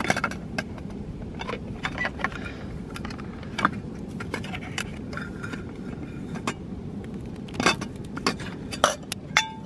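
Scattered small clinks, knocks and rattles of a Toaks titanium cook pot, its lid and a plastic gas-canister stand being taken out of a mesh stuff sack and handled, over a low steady background rumble.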